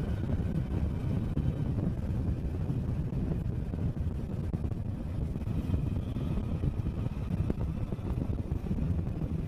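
Vehicle driving along a jungle road: a steady, rough low rumble of engine and road, with wind buffeting the microphone.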